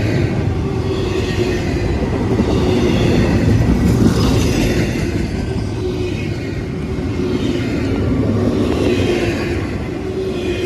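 Freight train cars rolling past close by: a loud, steady rumble of wheels on rail, swelling about every couple of seconds as cars go by.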